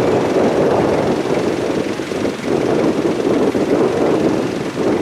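Farm machine's diesel engine running loudly and steadily.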